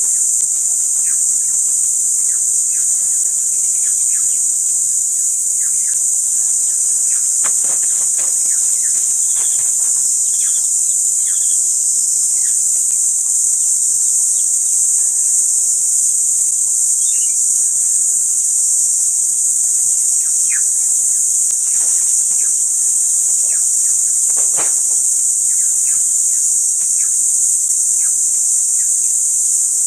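A loud, steady, high-pitched chorus of insects, with scattered short bird chirps over it.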